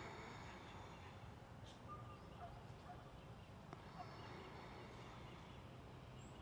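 Near silence: faint room tone with a few faint, high, thin tones about four seconds in.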